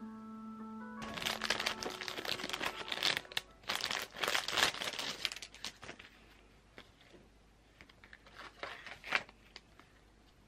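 Paper crinkling and tearing as a page is pulled off a desk calendar: a dense run of rustles for about five seconds, then a few sharper rustles near the end.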